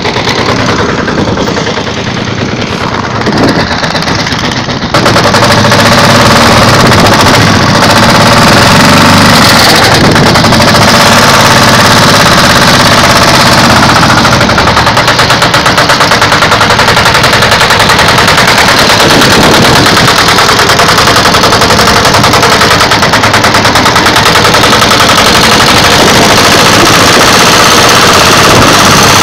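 Kentavr engine on a homemade cargo vehicle running, getting much louder about five seconds in as the vehicle drives off along a dirt track, pulling a load of about 500 kg of concrete.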